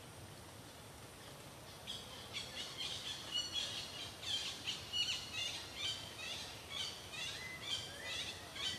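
A bird singing: a quick series of high chirps and short whistles that begins about two seconds in, with some notes sliding downward near the end.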